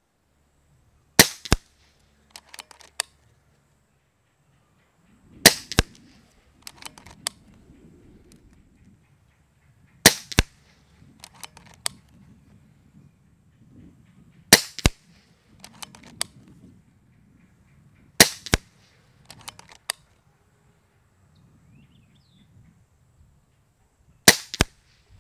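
Kral Puncher Breaker .22 PCP air rifle firing six shots, about four to six seconds apart, each a sharp crack followed a fraction of a second later by a fainter knock. Between shots come small clusters of clicks as the rifle is reloaded, over a low wind rumble on the microphone.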